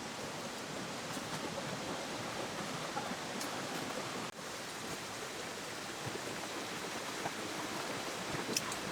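River water flowing steadily in a continuous rushing wash, with a brief dip about four seconds in and a faint high click near the end.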